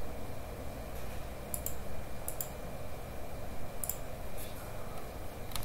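About half a dozen sparse clicks of computer keys, some in quick pairs, over a low steady room hum.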